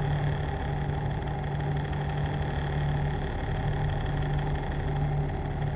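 A steady, unchanging low hum with a deeper rumble beneath it, like a machine running.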